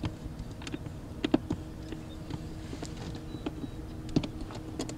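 Scattered light clicks and knocks of hands handling the controls and parts of a small two-stroke outboard motor, the sharpest about a second in and again near the end, over a faint steady hum.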